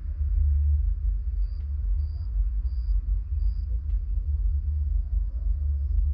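Low, muffled bass rumble of music from a distant nightclub, only the deep low end carrying over the distance, pulsing steadily.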